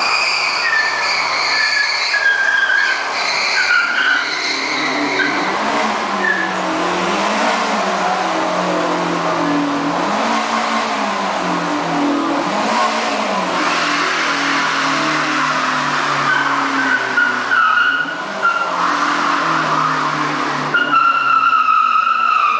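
Car tyres squealing over an engine that revs up and down again and again, the car being driven to make its tyres squeal. The squeal is strongest in the first few seconds and again near the end.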